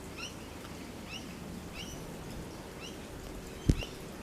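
A steady series of short, high, rising chirps, about two a second, and a single dull thump about three and a half seconds in.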